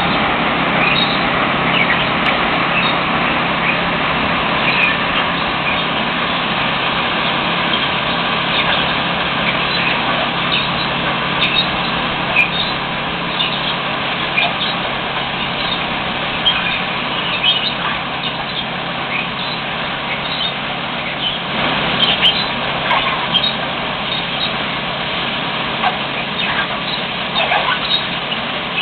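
Loram rail-mounted ballast cleaner at work: a steady, loud machinery din with an engine hum underneath. Over it runs a constant clatter of ballast stones and metal, with many short high squeaks and clicks.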